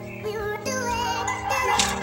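Background music: a high wavering melody over held chords that change about every second.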